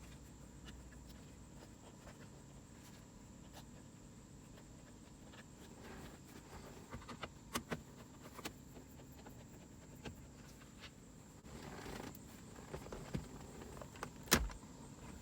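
Faint clicks and light knocks of a screwdriver, screws and plastic trim being handled while Phillips-head screws are taken out of a car's dash trim. Almost nothing for the first several seconds, then scattered small clicks from about halfway, with one sharper knock near the end.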